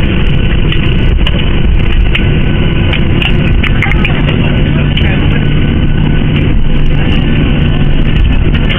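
Loud, steady rumble inside a jet airliner's passenger cabin: engine and airflow noise with a low hum and small rattles.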